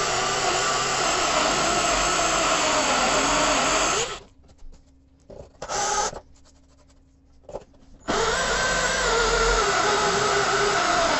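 Parkside cordless drill running a metal hole saw into a hard Granitek composite sink, the motor labouring with a wavering pitch as it cuts. It stops about four seconds in, gives a few short bursts, then runs steadily again from about eight seconds in.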